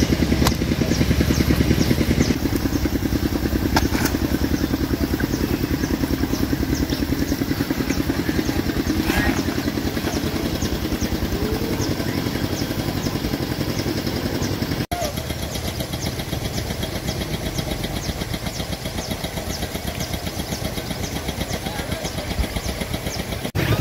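Motorcycle engine running steadily while being ridden, with a brief dropout about fifteen seconds in.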